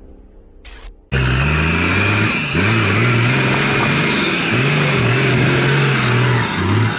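Toyota Land Cruiser HDJ80's 4.2-litre straight-six turbodiesel revving hard under load, starting abruptly about a second in. The revs drop and climb again several times as it pushes through deep mud.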